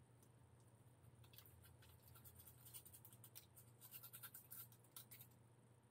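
Near silence: faint, irregular scratching and light ticks over a steady low electrical hum.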